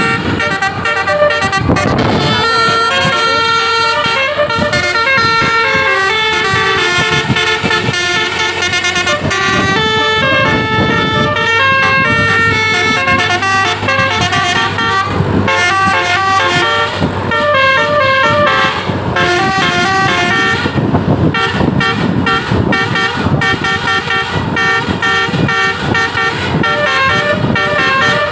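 Basuri musical air horn on an Indonesian intercity bus playing a fast tune of short stepped notes, with a brief break about two-thirds through. A low rumble runs underneath.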